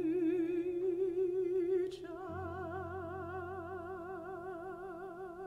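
A soprano voice holds one long note with a steady vibrato, accompanied by piano. About two seconds in the voice gets softer and a low piano chord sounds beneath it.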